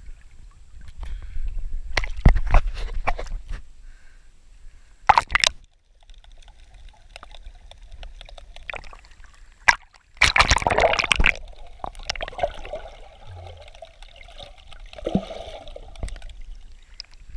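Creek water splashing, sloshing and gurgling around a camera at the surface as it dips under and comes back up, with a muffled, dull underwater sound while it is submerged. The loudest splash comes about ten seconds in.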